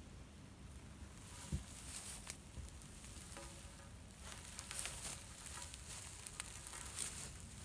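Faint crackling rustle with scattered light clicks and a few soft knocks.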